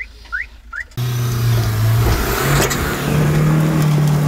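Short rising bird chirps, then about a second in the sound cuts to an off-road SUV's engine pulling hard in a low steady note, which steps up a little a second later. Over it is the noise of tyres spinning and spraying loose sand, with a single knock near the middle.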